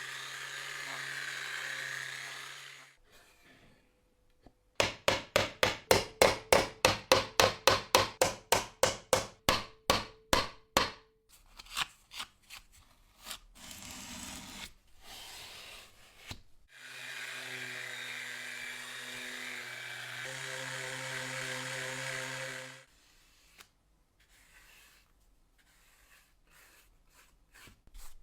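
Workshop restoration sounds: a small electric tool motor runs steadily, stops, and then comes rapid, even hand strokes rubbing or sawing on wood, about three a second. After some scattered handling noises the motor tool runs again, followed by a few light clicks.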